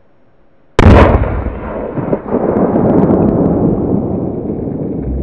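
A firecracker goes off under a metal cooking pot about a second in: one sudden, loud blast that throws the pot into the air, followed by several seconds of rough noise that slowly eases.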